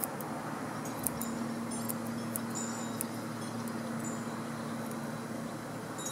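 Grooming scissors snipping a few times in the hair of a small dog's foot, cutting a sticker out of the fur, as short sharp metallic clicks over a steady low hum.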